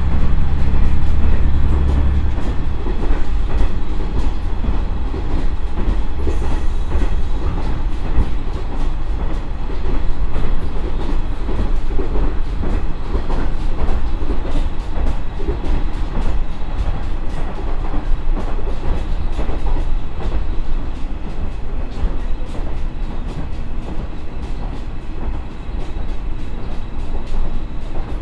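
Running sound inside a JR East KiHa 100 diesel railcar: the Komatsu DMF11HZ diesel engine droning under the floor together with wheel and rail noise, with light rail clicks. The deep engine drone drops away about two seconds in, and the sound eases slightly toward the end.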